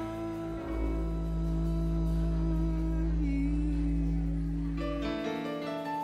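Live small jazz band playing: one long held note over a sustained low bass tone, with piano notes coming in near the end.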